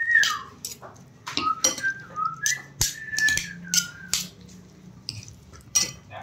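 A metal spoon clinks and scrapes against a ceramic bowl while stirring jhalmuri, in a dozen or so sharp strokes. Between the strokes come short, thin whistle-like tones that slide up and down in pitch.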